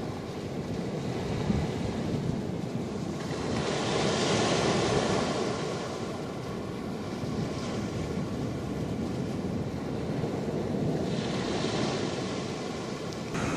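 Ocean surf washing onto a sandy beach, a steady rush that swells louder twice as waves break, about four seconds in and again near the end, with wind buffeting the microphone.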